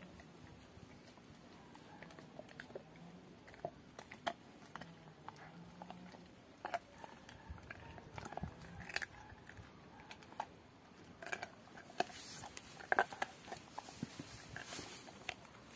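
Rottweiler gnawing a raw pork bone: irregular crunches and cracks of teeth on bone with wet chewing, coming thicker and louder near the end.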